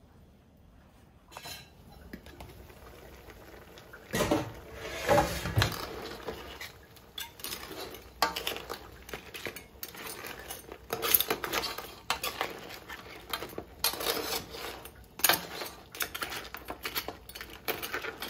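Metal spoon stirring crab curry in a large aluminium pot, scraping and clinking against the pot and the crab shells in repeated strokes. There are a few heavier clanks about four to six seconds in, after a quiet start.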